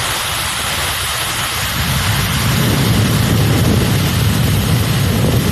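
Hair dryer running, a steady loud rush of blown air, its low rumble growing stronger about two seconds in.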